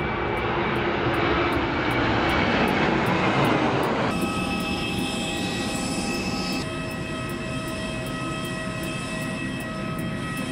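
A jet airliner passing low overhead, a broad roar that swells and then fades. About four seconds in it cuts to the steady, high multi-tone whine of jet engines beside a parked airliner on the apron.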